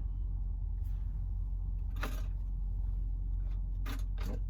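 Steady low rumble of an idling semi-truck engine heard inside a truck's sleeper cab, with a few faint short clicks and rustles.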